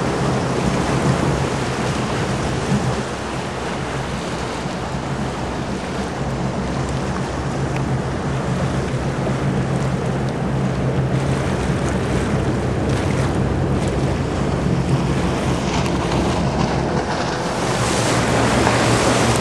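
Sea Ray cruiser underway: a steady low engine drone under the rush of wind on the microphone and water along the hull, the wind growing louder near the end.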